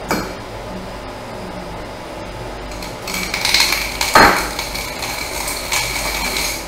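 Hand deburring tool scraping around the freshly cut end of an aluminium tube, taking off the burr left by the tube cutter, the tube ringing under the blade. A sharp metallic knock comes about four seconds in, and a click right at the start.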